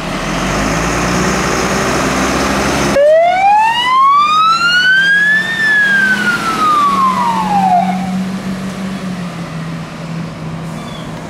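MAN fire engine's diesel engine revving as it pulls away on a turnout, then its siren sounds a single wail about three seconds in, rising for about two and a half seconds and falling for about two, over the running engine.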